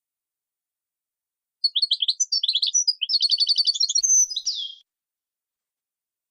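A songbird singing one phrase of about three seconds, starting about a second and a half in: quick twittering notes, then a fast even trill, ending in a downward-sweeping note. It is a song-teaching recording of a set song style, used to train caged songbirds.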